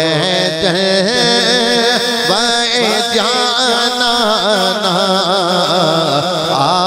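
A man singing a naat unaccompanied into a microphone, drawing out long melismatic lines whose pitch bends and wavers up and down. A steady low drone holds beneath the voice.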